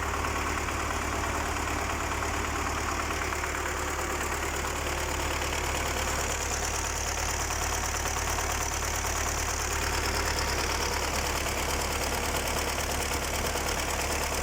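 An engine idling steadily with a fast, even knocking running through it. This is the unexplained knock that the owner is asking about.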